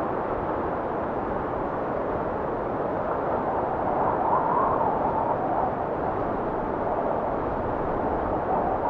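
Wind blowing in a steady rush, swelling into a higher whistling gust about four seconds in.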